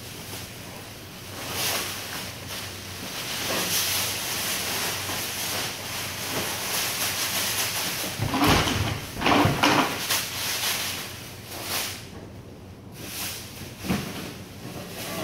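Plastic bags rustling and plastic crates being handled, knocking and scraping, with a cluster of loud knocks a little past halfway and another near the end. A faint steady low hum runs underneath.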